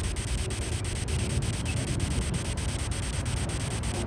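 Steady static hiss from a Ghost Tube spirit-box app sweeping, with faint regular ticks about five a second.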